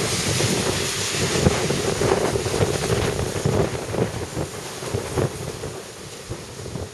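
Typhoon wind gusting hard and buffeting the microphone, easing off over the last couple of seconds.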